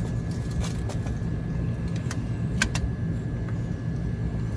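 A few sharp metallic clicks of channel-lock pliers gripping and working a hydraulic lifter in the lifter bores of a 460 big-block Ford, over a steady low hum.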